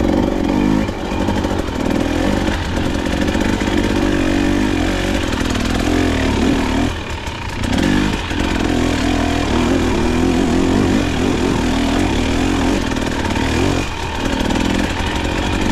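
KTM dirt bike engine pulling at low revs in second gear on a trail climb, the throttle rising and falling, easing off briefly about seven seconds in and again near the end.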